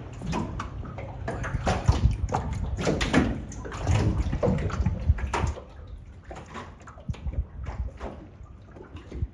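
Water sloshing and splashing in irregular surges, with a low rumble; it drops noticeably quieter about five and a half seconds in.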